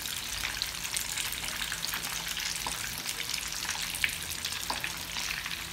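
Egg-and-cornflour-coated mutton chops deep-frying in hot oil: a steady, dense sizzle and crackle. A few sharper clicks come from a metal slotted spoon turning the pieces in the pan.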